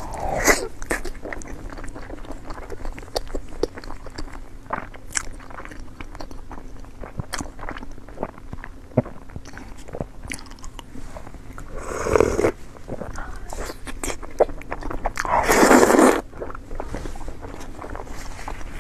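Close-miked eating: repeated biting and chewing with wet mouth clicks and crunches, broken by two longer, louder bursts of noise about twelve and fifteen seconds in.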